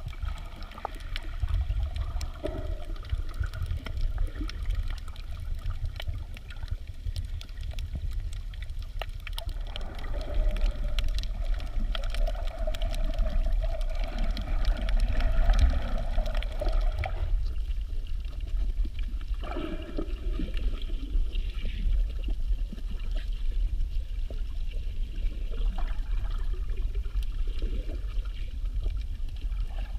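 Underwater sound picked up by a camera held below the surface: a steady, muffled low rumble of moving water with many faint crackling clicks throughout.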